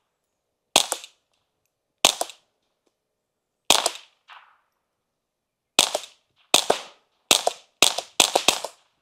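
Suppressed Ruger Mark IV .22 pistol firing nine sharp shots: three spaced more than a second apart, then six in quicker succession near the end.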